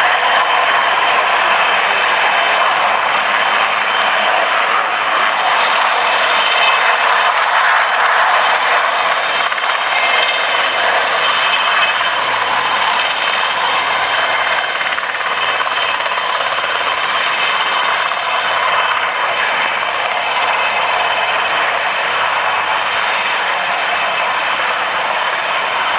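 Romanian Air Force IAR 330 Puma military helicopter flying close by: a loud, steady noise of its turbine engines and rotor, with a thin high whine running through it.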